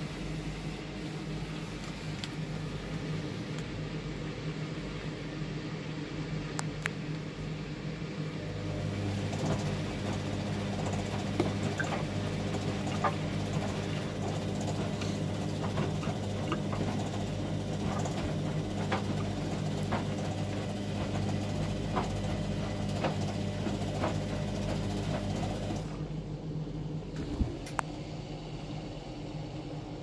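Hoover front-loading washing machine rinsing on its Daily 59 Min programme: the drum motor hums steadily while wet, sudsy laundry tumbles and sloshes, with scattered small clicks and knocks. The motor gets louder about a third of the way in and drops back again near the end.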